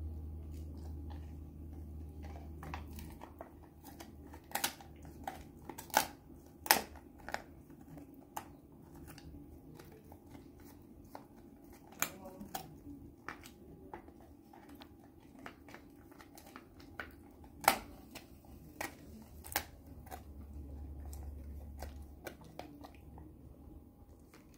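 Black Labrador puppy gnawing a dried chew treat: irregular crunching and sharp cracks from its teeth on the hard chew, a handful of them much louder than the rest.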